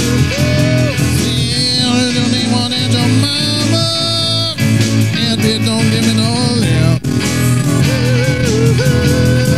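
Blues band playing an instrumental passage: a lead guitar plays bent, sliding notes over a steady bass and drum beat.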